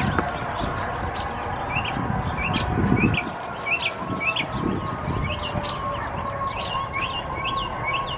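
A bird chirping over and over, short sharp chirps about twice a second, over a low rumble and a steady hum.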